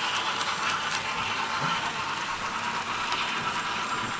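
Model freight train of tank wagons rolling along the layout track: a steady rolling wheel noise, with a few light clicks in the first second.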